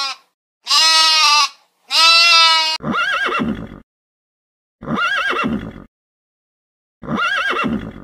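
Two sheep bleats, then three horse whinnies about two seconds apart, each about a second long.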